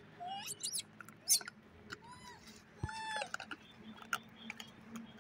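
Monkeys squeaking: a few quick rising squeals in the first second and a half, then two short arched calls, rising and falling in pitch, about two and three seconds in, with scattered small clicks.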